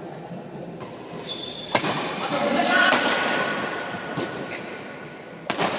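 Badminton rackets striking the shuttlecock in a rally: about five sharp cracks roughly a second apart, the loudest near two seconds in and just before the end. Spectators' voices swell in the middle.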